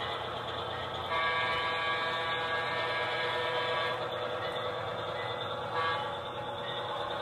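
HO scale model locomotive's sound unit running steadily and blowing its horn, one blast starting about a second in and lasting about three seconds, then a shorter one near six seconds.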